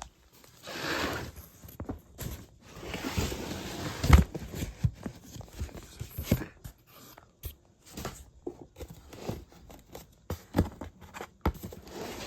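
Cardboard and model parts being handled close to the phone: two scraping, rustling swells, then an irregular run of light knocks and taps, the loudest about four seconds in.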